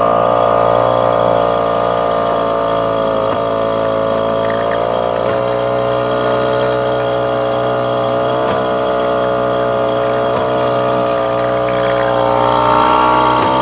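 Small outboard motor running steadily under way. Its note shifts slightly about five seconds in and again near the end.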